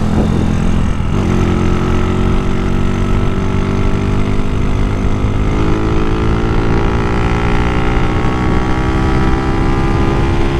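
Modified Honda Titan 2000 motorcycle's 240 cc single-cylinder engine accelerating in gear. It steadies until about a second in, then its pitch climbs slowly and steadily as speed builds.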